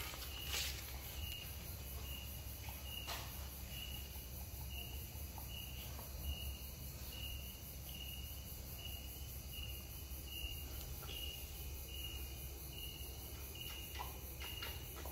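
A cricket chirping steadily, short high chirps about twice a second, over a low steady hum, with a few faint clicks.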